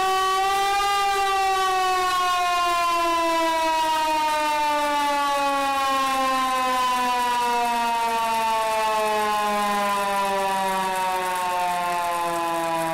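Hand-cranked siren wailing. Its pitch rises briefly in the first second, then falls slowly and steadily as the rotor coasts down after the cranking stops.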